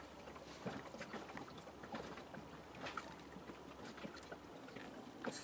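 Faint, irregular small clicks and ticks of hands twisting the bared wire ends of two coaxial cables together, over a steady background hiss. A brief burst of hiss near the end.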